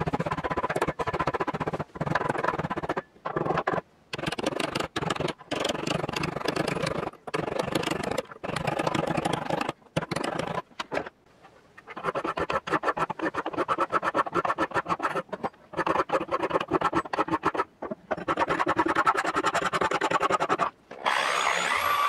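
Hand metalworking on a small piece of sheet metal clamped in a steel vise: hammer taps and hand-file strokes rasping across the metal, in stretches with short breaks. Near the end a spinning abrasive disc starts up with a rising high whine, to strip paint off the sheet metal.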